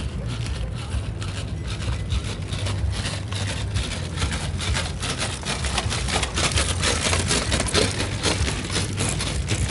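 Rapid, irregular clicking and scraping from a bicycle with Reuleaux-triangle wheels rolling on rollers inside its fenders, loudest in the second half when it passes close. A steady low rumble underneath, like wind on the microphone.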